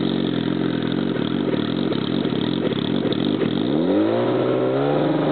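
Turbocharged Suzuki GSX-R1000 inline-four idling, with one quick throttle blip about three and a half seconds in that rises and drops back to idle.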